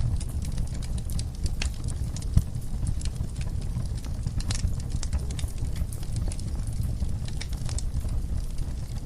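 Wood fire burning in a fireplace, crackling with irregular sharp pops over a steady low rumble of the flames.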